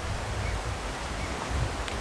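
Outdoor ambience: a steady noisy hiss with a fluctuating low rumble of wind, and a faint click near the end.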